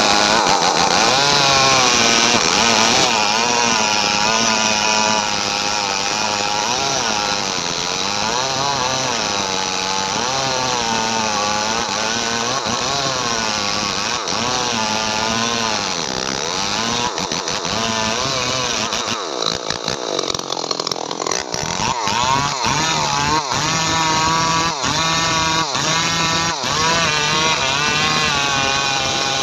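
Custom-assembled two-stroke chainsaw running at high revs as its chain cuts into the base of a teak trunk, the engine pitch wavering up and down under the load of the cut. About twenty seconds in the engine note drops off briefly, then runs on unevenly with short repeated dips.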